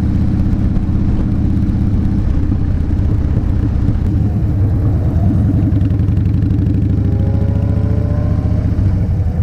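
2012 Harley-Davidson Fat Bob's V-twin engine running steadily while the bike is under way, with a low, even rumble; its note changes about two seconds in.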